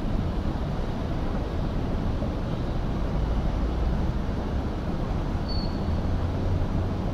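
Steady low rumble of waterside harbour ambience with a faint low hum under it, and one short high chirp about five and a half seconds in.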